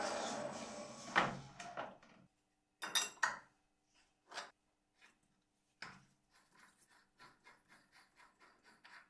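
Metal lathe spindle running and dying away over the first two seconds, then sharp metallic clinks and knocks as the ER collet nut is gripped and loosened by hand. Near the end comes a run of light, regular ticks, about three a second, as the nut is turned.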